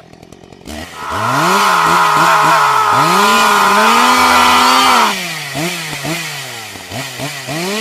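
Chainsaw engine revving up and down again and again, its pitch climbing and falling with each blip of the throttle. It is loudest in a long held rev for the first few seconds, then drops back to lighter, quicker revs.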